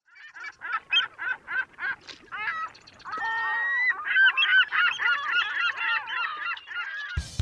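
A flock of geese honking: single honks at about three a second at first, then many overlapping calls from about three seconds in. Music with drums cuts in suddenly just before the end.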